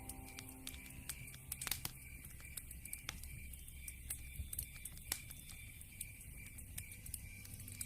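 Wood fire in a fireplace crackling, with irregular sharp pops; the strongest come just under two seconds in and about five seconds in.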